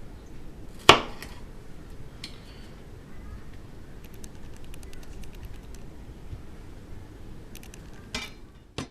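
Kitchen knife chopping sweet red peppers on a cutting board: one sharp knock about a second in, then a run of light, quick ticks and a few more knocks near the end.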